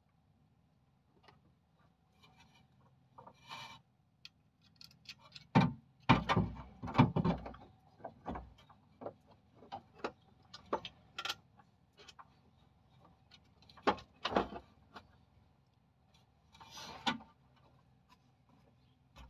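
Irregular metallic knocks, clicks and clatter as a replacement alternator is handled and worked into place in a Dacia Logan's engine bay, with the densest run of knocks about six seconds in.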